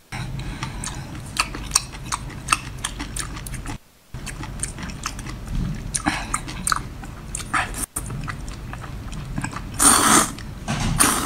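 Close-miked eating sounds of someone chewing seafood from a spicy seafood boil: wet chewing with many short clicks and lip smacks, and a longer, louder noisy burst about ten seconds in.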